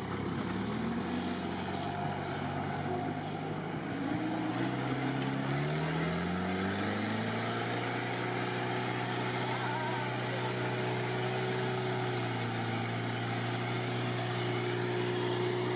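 Modified UAZ off-roader's engine pulling under load through deep mud and water, its revs climbing about five seconds in and then held steady, with the wheels churning through the muddy water.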